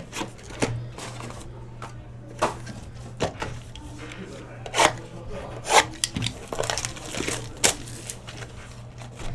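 Trading card packs and cards being handled: irregular crinkling, rubbing and sharp clicks as packs are opened and cards slid out, over a low steady hum.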